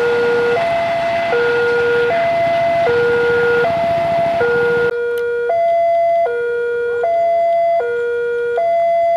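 Railway level-crossing warning alarm sounding a loud two-tone electronic chime, alternating a lower and a higher note about every three-quarters of a second. It plays over a rushing background noise that drops away about five seconds in.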